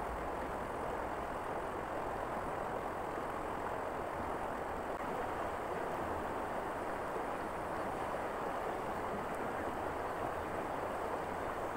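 Steady rush of flowing river water, an even hiss-like noise with no distinct events.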